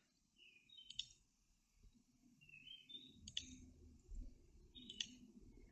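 Near silence with three faint computer-mouse clicks, about one, three and five seconds in.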